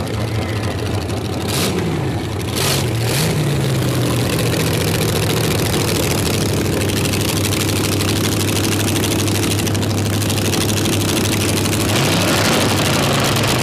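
Twin-engine dragster's two engines idling through open headers, with a few quick throttle blips about two to three seconds in and another near the end.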